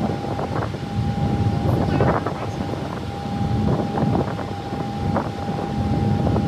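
Steady low drone of a car ferry's engines heard on deck, with a constant high-pitched tone over it and wind on the microphone.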